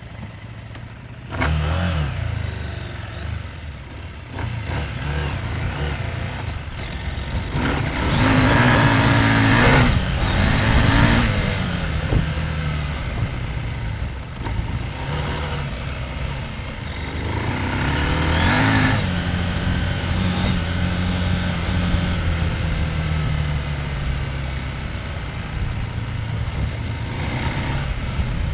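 Husqvarna Norden 901's parallel-twin engine under way, its pitch rising and falling with the throttle. It picks up about a second and a half in, opens up hardest about a third of the way through and again around two-thirds through, and otherwise pulls steadily.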